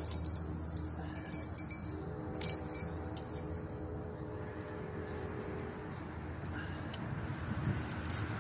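Light metallic jingling in three short bursts within the first three and a half seconds, over a faint steady high tone and low hum.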